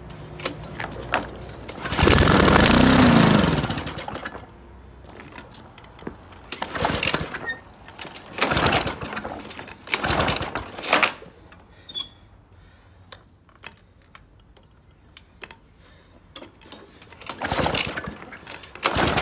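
Briggs & Stratton lawn mower engine being pull-started cold after 20 months unused: it fires for about two seconds, its speed rising and falling before it dies, then it sputters briefly on several more pulls without staying running.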